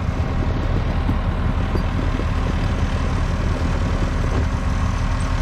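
Diesel engine of a loader running steadily, a low, even drone.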